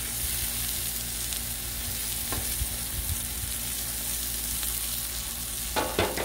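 Tri-tip steaks frying in ghee on a hot Blackstone steel griddle, a steady sizzle. Near the end comes a quick double clank of a metal spatula being picked up off the griddle.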